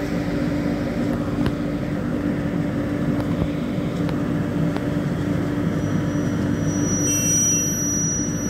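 Romanian LE 060 EA (class 41) electric locomotive running, giving a steady deep electrical hum with machine noise. A thin high whine joins about six seconds in.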